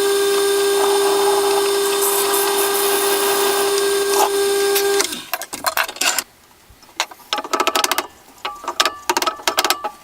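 Electric wood lathe running with a steady, even whine that stops abruptly about five seconds in. Irregular light clicks and knocks follow.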